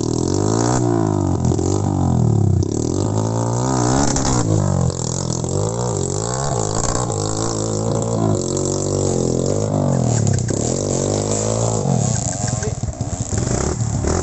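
Off-road trail motorcycle engines revving up and down, more than one at once, their pitches rising and falling across each other.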